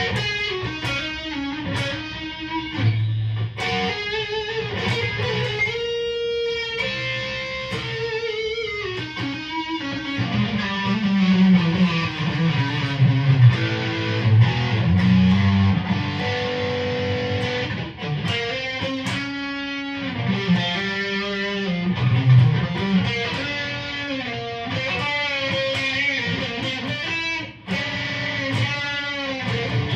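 Telecaster-style electric guitar with twin humbucking pickups, played through an amplifier with the selector on the middle position blending both humbuckers. It plays melodic single-note lead lines with sustained and bent notes.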